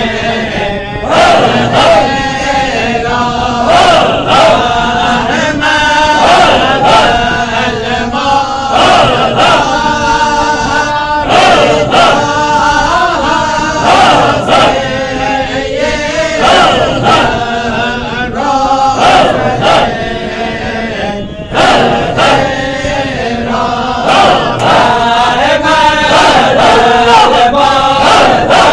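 Men's voices chanting a Halara (hadra) dhikr together, with a sharp rhythmic accent about once a second.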